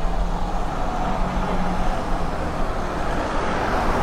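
Street traffic: a motor vehicle's engine running with a steady low hum, its noise swelling a little near the end.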